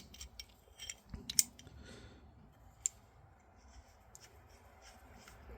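A few light, scattered clicks and taps of a small metal hand vise being handled, most of them in the first three seconds, with quiet between.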